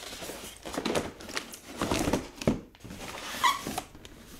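Large cardboard box being handled and shifted on the floor: rustles and scrapes, a knock about two and a half seconds in, and a short squeak near the end.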